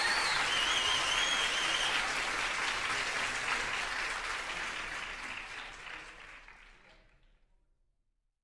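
Crowd applauding and cheering, with a few high whoops in the first two seconds. The applause fades out over the last few seconds.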